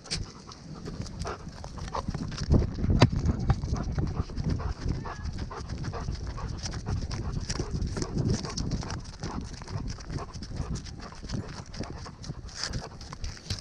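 A dog's footfalls and body movement heard close up from a camera the dog carries: a fast, irregular run of knocks and rustles.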